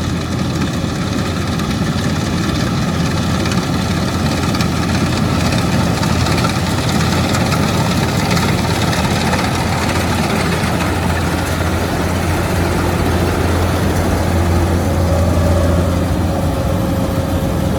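Kubota rice combine harvester's diesel engine running steadily, with a strong low hum; a faint higher whine comes in near the end.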